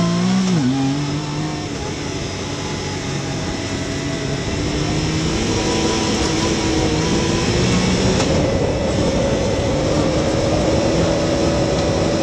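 Yamaha YXZ1000R side-by-side's three-cylinder engine pulling under acceleration, growing louder and rising in pitch over the first two thirds, then holding steady.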